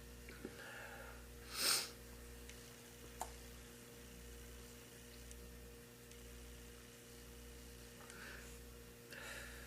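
A person's single sharp sniff nearly two seconds in, with faint breathing before and after, over a steady low electrical hum.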